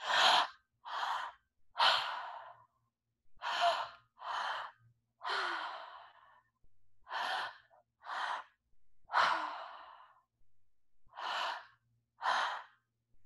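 A woman breathing audibly through her open mouth in a three-part breathwork pattern: two short breaths in, into the belly and then the chest, followed by a longer breath out. The cycle repeats about four times, slowing a little each time.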